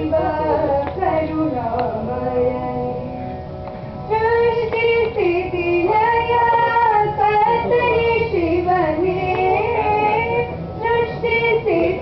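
Young female voices singing a slow devotional invocation song with long held, gliding notes. The singing thins out about two seconds in and comes back strongly at about four seconds.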